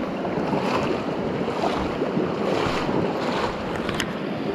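Fast-flowing river water rushing steadily around a wading angler, with wind buffeting the microphone. A single sharp click about four seconds in.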